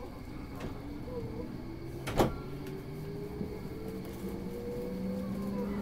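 Electric commuter train's traction motors whining as the train pulls through the station, heard from inside the car, the pitch rising slowly as it gains speed. One sharp click about two seconds in is the loudest sound.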